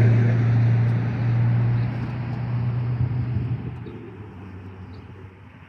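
An engine drone, a steady low hum that holds for about three seconds and then fades away gradually.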